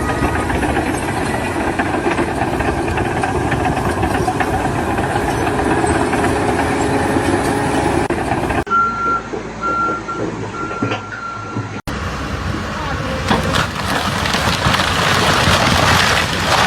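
Loud, dense site and machinery noise across several clips. In the middle clip a vehicle's reversing alarm beeps three times over a low engine hum.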